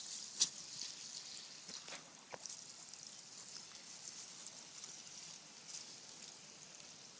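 Water spraying from a garden hose with a steady hiss, broken by a few sharp clicks. The loudest click comes under a second in, and two more come about two seconds in.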